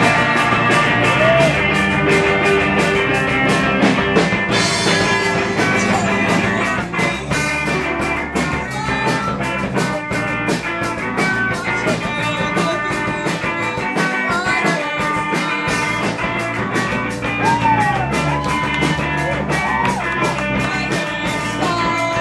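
A rock band playing live, with electric guitar and a drum kit keeping a steady beat.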